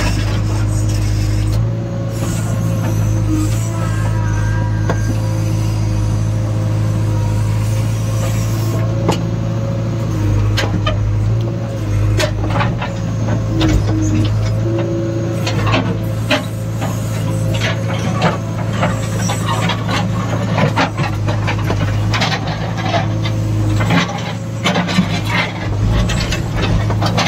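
JCB 3DX backhoe loader's diesel engine running steadily under load, heard from inside the cab. Scattered knocks and scrapes from the backhoe bucket working stony soil, more frequent from about nine seconds in.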